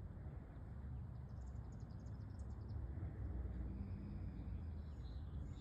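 Quiet outdoor ambience: a low background rumble, with a quick run of faint, very high bird chirps starting about a second and a half in and another faint call near the end.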